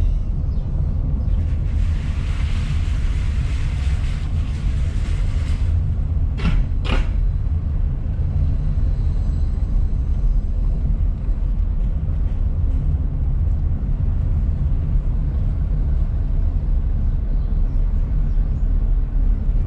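Car driving slowly, heard from inside the cabin: a steady low rumble of engine and road, with a hissing stretch a couple of seconds in and two sharp knocks close together about seven seconds in.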